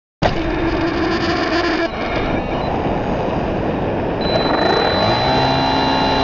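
Onboard audio from an RC plane in flight: wind rushing over the camera microphone along with the whine of the electric motor and propeller. The sound cuts in suddenly just after the start. About two-thirds of the way through, a rising whine settles into a steady pitch as the motor speeds up.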